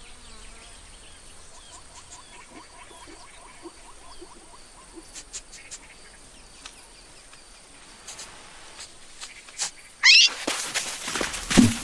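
Cartoon savanna ambience: a faint steady insect buzz and a run of quick, faint chirps. About ten seconds in, a cartoon meerkat lets out a sudden loud high cry, followed by loud clattering noise.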